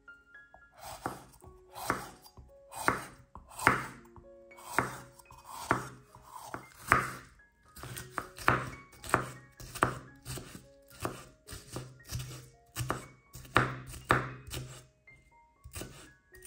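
Chef's knife chopping red bell pepper on a wooden cutting board: a sharp knock at each stroke, about one a second at first, then quicker in the second half. Soft background music plays under it.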